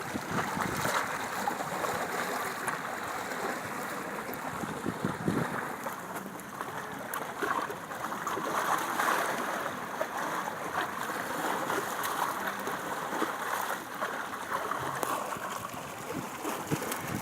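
Small sea-lagoon waves lapping and splashing at the water's edge, a continuous wash of water that swells and eases every few seconds, with small splashes and clicks.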